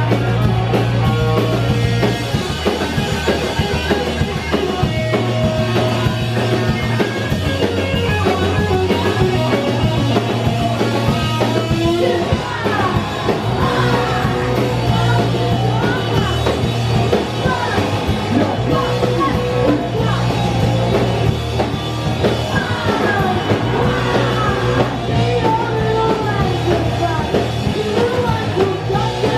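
Punk rock band playing live: electric guitar, bass guitar and drum kit, with a woman's lead vocal coming in about twelve seconds in.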